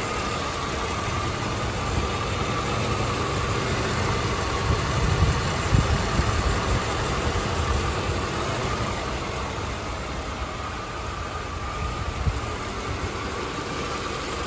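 Mercedes-Benz 380 SL's 3.8-litre V8 idling steadily with its hood open, warming up after a cold start.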